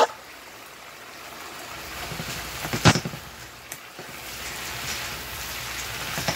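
Ground turkey, bell peppers and onions sizzling in a hot frying pan as they are stirred, the sizzle growing louder from about a second and a half in. A single knock stands out about three seconds in.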